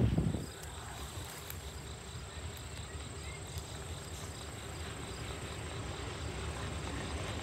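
Insects chirping in a steady, regular pulse, with a faint low rumble underneath.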